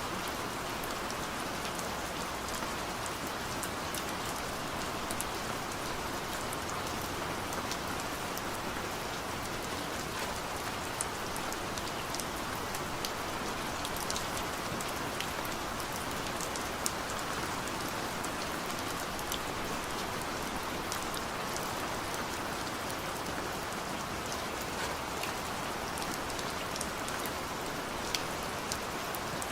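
Steady rain falling, with scattered sharp drop ticks on a surface over an even hiss.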